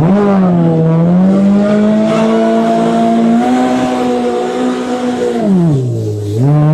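Jet ski engine running hard at high revs, cutting in suddenly. Its pitch holds steady, then drops away about five and a half seconds in and climbs back up near the end.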